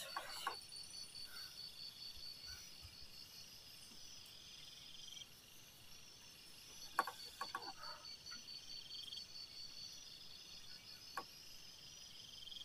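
Crickets chirping steadily and faintly, in a fast pulsing rhythm with recurring trills. A sharp knock comes about seven seconds in, followed by a few quieter clicks, and one more knock comes near the end.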